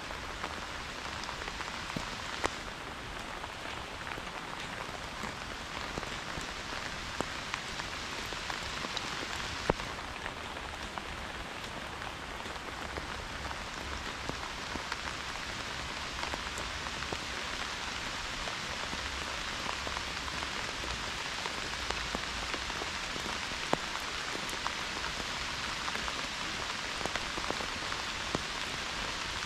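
Pouring rain: a steady hiss, with sharp taps of single drops striking close to the microphone now and then.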